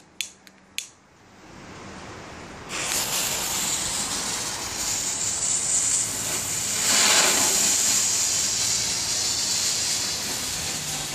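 A couple of sharp clicks from a lighter at the fuse. About three seconds in, a Weco Bengal-light fountain (Geisterlicht) ignites with a sudden, loud, steady hiss, which swells about seven seconds in as it sprays sparks.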